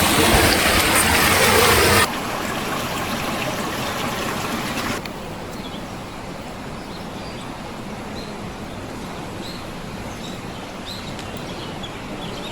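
Steady rush of flowing river water, loud at first, dropping abruptly about two seconds in and again about five seconds in. Faint bird chirps sound over the quieter rush in the second half.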